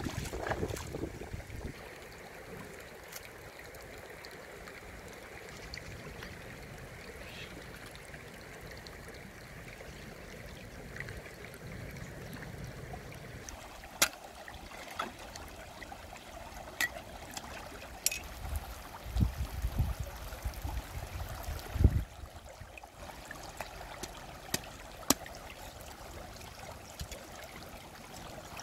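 Shallow river water trickling and splashing around hands working in it, with several sharp knocks of a cleaver cutting meat, the first about halfway through.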